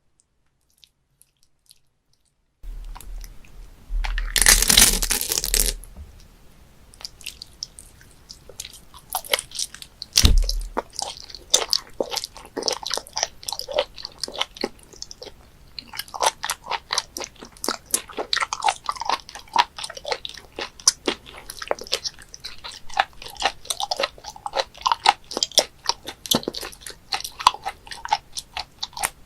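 Close-up eating sounds of live octopus being chewed: rapid wet clicks, smacks and crunches from the mouth. A loud burst of noise comes about four seconds in and lasts under two seconds, after a quiet start.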